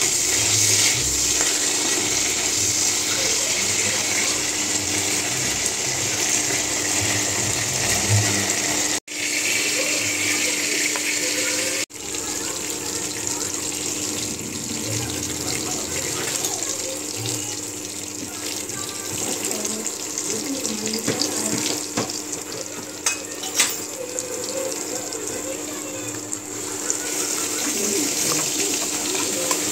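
Cooking oil sizzling steadily in a metal kadhai as clove beans are fried and stirred with a steel ladle. The sizzle breaks off abruptly twice, about nine and twelve seconds in, then goes on as oil frying with spices, with a couple of sharp clicks a little past the middle.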